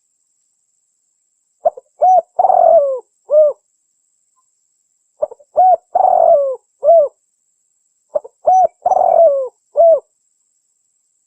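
Spotted dove cooing: three repeated phrases a few seconds apart, each a few short coos, then a longer coo and one final coo.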